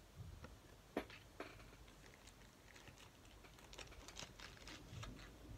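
Pokémon trading cards handled between the fingers: faint, scattered clicks and light rustles of card stock being flipped and slid, with one sharper tap about a second in.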